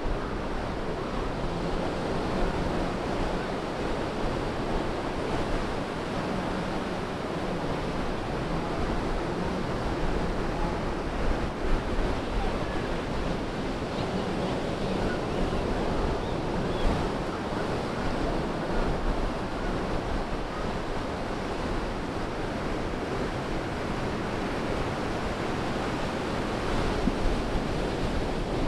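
Ocean surf breaking and washing up a sandy beach in a steady wash, with wind noise on the microphone.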